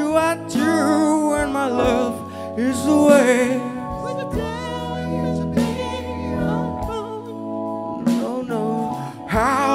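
Live band: several singers holding long, wavering notes with heavy vibrato, in a gospel-like style, over sustained keyboard chords and bass.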